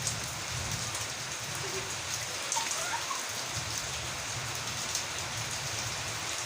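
Steady rain falling, a dense even hiss with scattered drop ticks and a low rumble underneath.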